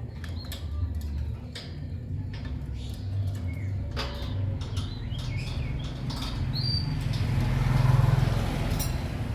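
Lovebirds giving short, high chirps, with scattered sharp clicks over a steady low rumble. A rustling swell of noise builds and peaks near the end.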